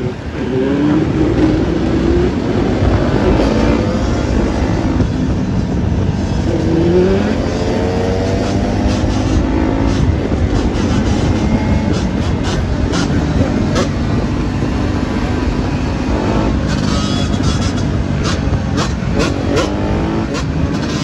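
Off-road engines running at speed with wind rush, one engine revving up in a rising whine about a second in and again about six seconds in. A scatter of short clicks and knocks comes through in the second half.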